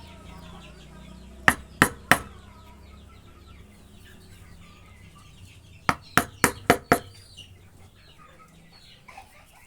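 Sharp hammer blows in quick runs: three in a row, then, a few seconds later, five more, each about a third of a second apart.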